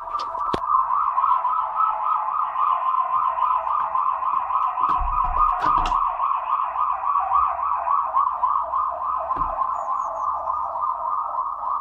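A loud, siren-like warbling tone that pulses about five times a second without a break, with a few faint high chirps near the end.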